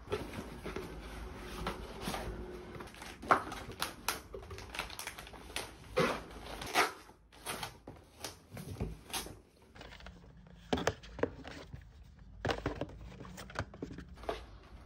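Cardboard boxes and paper packaging being handled and opened: irregular crinkling, rustling, taps and scrapes, with a few sharper clicks.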